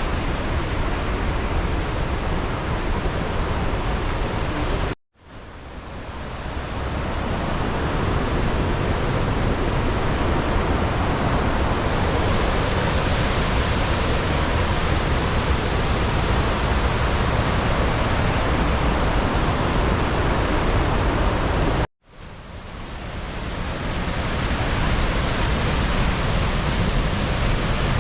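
Steady roar of the Rhine Falls, a large waterfall, with heavy water crashing. It cuts out abruptly twice, once about five seconds in and again later, and each time fades back in over a couple of seconds.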